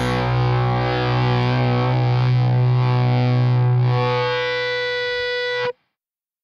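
Outro rock music with distorted guitar; a final held chord rings and cuts off abruptly near the end.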